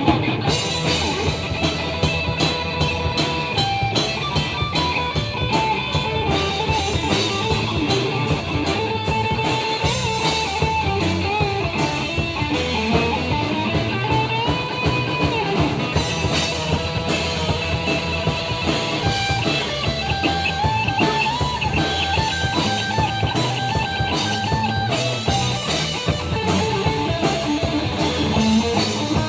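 Rock band playing an instrumental break of a blues-rock song: a lead guitar line with bent, held notes over a drum kit and bass.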